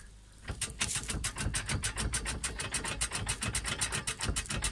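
Fast, even metallic rattling ring, about ten clicks a second, from an Audi A6 C5's manual gearbox and shift linkage with the lever in neutral; it starts about half a second in. The owner suspects the gearshift linkage has worked loose or worn.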